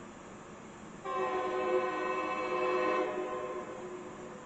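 Locomotive air horn sounding one long, chord-like blast of about two seconds, starting abruptly about a second in and trailing off. Heard through a television's speaker.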